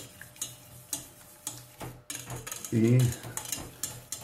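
Wire whisk beating a cream and egg-yolk mixture in a stainless steel saucepan, the wires clicking and scraping against the pan in a string of light, irregular clicks. A short bit of speech comes in near the three-second mark.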